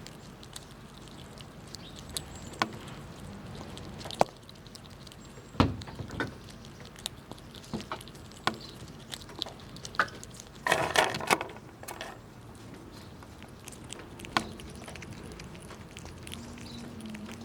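Squirrels gnawing and cracking nuts: scattered sharp cracks and clicks, with a quick rattling run of them about eleven seconds in, over a steady low background hum.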